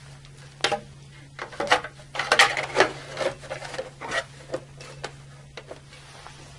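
Front cover of an Eaton Series NRX circuit breaker being fitted onto the breaker: a run of knocks, clicks and scraping as it is pushed into place, densest about two to three seconds in, then a few scattered taps.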